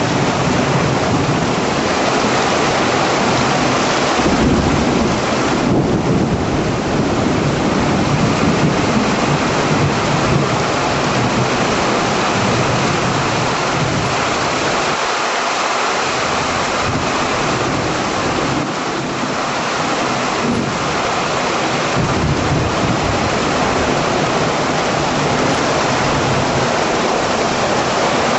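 Heavy thunderstorm rain pouring steadily, with low thunder rumbling under it that eases briefly about halfway through.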